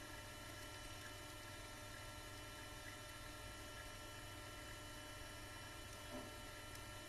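Steady electrical mains hum, a low drone with many steady overtones, with one faint soft knock about six seconds in.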